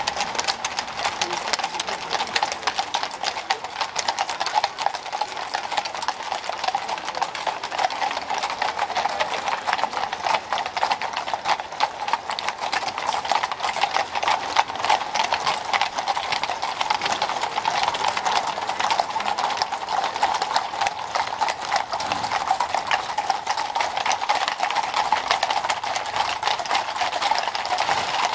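A column of many shod horses walking on a paved street, their hooves clip-clopping in a dense, continuous run of overlapping hoofbeats.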